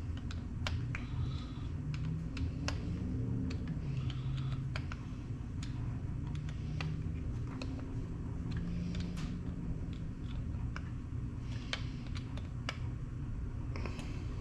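Light, irregular clicks and taps of small metal parts and a hand tool as screws are fitted to a Holley carburetor, over a steady low hum.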